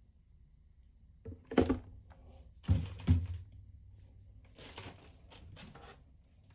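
Objects being handled: four sharp knocks and thuds in the first half, then rustling.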